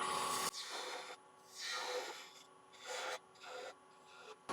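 Quarter-inch spindle gouge cutting into a small spinning wood blank on a lathe: four short scraping passes, each swelling and fading, with quiet gaps between.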